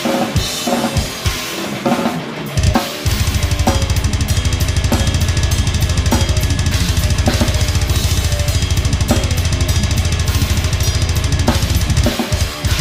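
Acoustic drum kit played hard: separate kick, snare and cymbal hits, then from about three seconds in a long run of very fast, continuous bass-drum strokes under cymbals, broken off briefly near the end.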